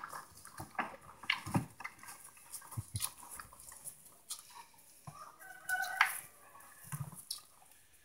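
A cow eating feed from a plastic trough: scattered crunches and knocks of its muzzle against the tub. A hen clucks a few times, most clearly about five to six seconds in.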